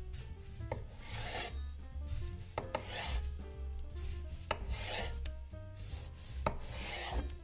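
Knife slicing through a ripe tomato on a wooden cutting board: four rasping strokes about two seconds apart, each with a sharp tap of the blade on the board.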